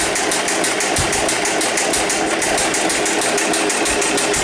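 The 1926 Gotfredson farm truck's engine turning over on the starter in an even rhythm of about six beats a second, with a few separate low pops that are backfires. The backfiring is taken as a sign that the ignition timing is out.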